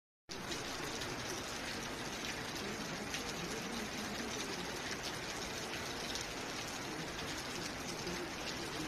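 Heavy rain and rushing water: a steady, even rushing hiss that starts abruptly a moment in and then holds without a break.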